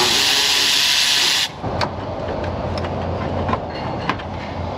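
A loud burst of compressed-air hiss from an air-line tool, lasting about a second and a half and cutting off sharply. Light clicks of plastic parts being handled follow as the plastic air intake duct is worked loose.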